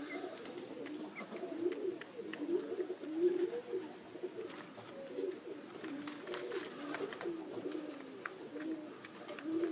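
Domestic pigeons cooing, a run of low wavering coos one after another.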